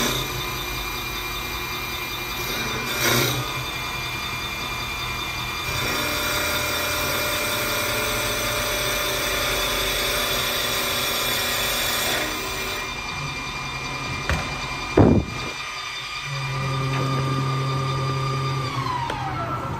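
CNC wood lathe turning a wooden spindle: the machine's motors give a steady whine over the rush of the cutter shaving the spinning blank. A short loud burst comes about two thirds of the way in. Near the end a whine drops in pitch as a motor slows down.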